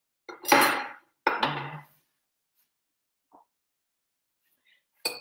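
Kitchen items being handled on the counter: two short bursts of clatter in the first two seconds, the first the loudest, then quiet until a click near the end.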